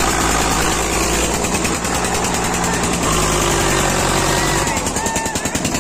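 Diesel engines of an Eicher 242 and a Standard tractor running hard under full load as the two pull against each other on a chain, a steady low drone that turns to a rougher, rapid pulsing near the end.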